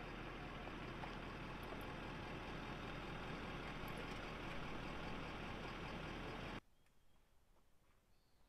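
A vehicle engine running steadily, cutting off abruptly about six and a half seconds in. After that there is only faint quiet with a few light clicks.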